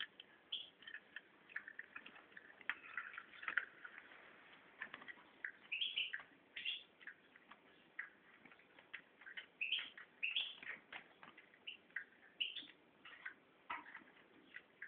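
Caged European goldfinch giving short high chirps and brief twittering phrases at irregular intervals, with light clicks scattered among them.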